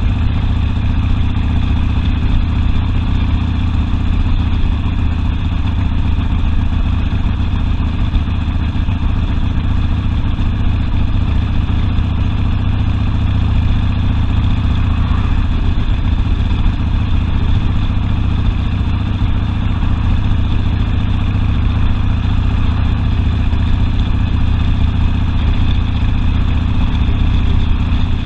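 Harley-Davidson Sportster's V-twin engine running steadily, with no clear rise or fall in revs.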